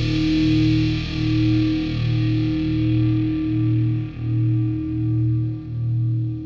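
Music: a distorted electric guitar repeating a low note roughly every three-quarters of a second, its upper range gradually fading away.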